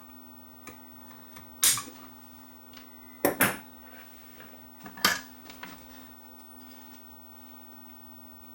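Small hand tools clicking and clattering against a workbench and radio chassis during soldering work: a sharp knock, then two in quick succession, then another, over a low steady hum.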